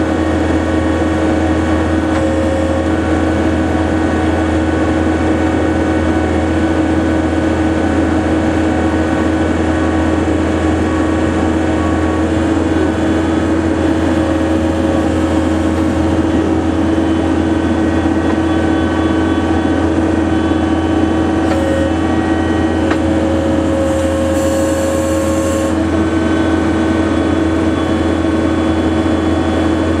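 John Deere 317 skid steer loader's diesel engine running steadily under the operator, with a constant low hum and steady engine tones, heard from the cab. A brief hiss of about two seconds comes late on.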